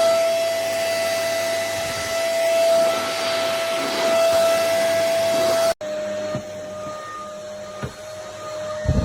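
Tower VL20 corded stick vacuum cleaner running with a steady whine over a rush of air. About two-thirds in, the sound cuts off abruptly and comes back quieter and slightly lower in pitch, with a couple of short knocks near the end.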